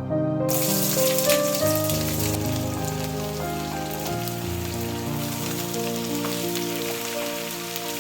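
Food sizzling as it fries in a pan, starting about half a second in, over soft background music.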